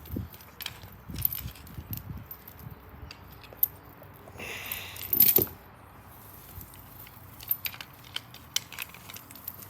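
A dog's metal tie-out chain clinking and rattling in short jingles as it is untangled, with a louder scrape about halfway through.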